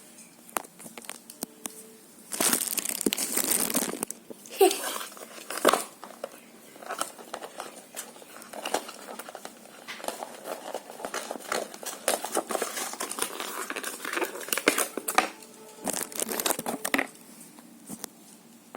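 Toy packaging crinkling and rustling as a diecast toy car is worked out of its box: irregular spells of rustling with small clicks, the loudest about two to four seconds in and again near the end.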